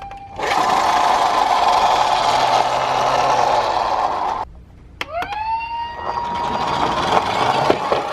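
Emergency-vehicle siren sounds. A harsh, steady siren tone lasts about four seconds and breaks off. After a brief pause a siren winds up, rising in pitch over about a second, then holds a steady tone.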